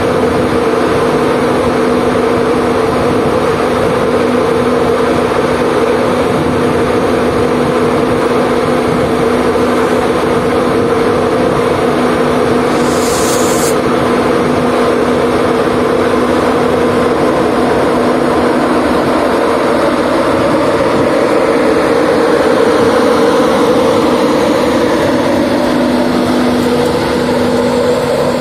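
Class 91 electric locomotive humming loudly and steadily at a standstill, with a short hiss about halfway through, then pulling away in the last few seconds, its pitch beginning to change as it moves off.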